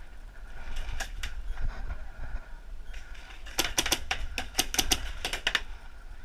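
Paintball marker shots: two single shots about a second in, then a rapid string of about a dozen shots over two seconds.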